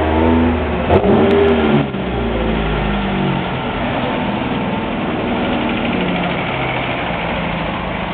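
Vintage car engines in a parade: a Triumph TR3 roadster's four-cylinder engine revs loudly as it pulls away past the listener during the first two seconds. A following classic car's engine then runs more steadily as it rolls by.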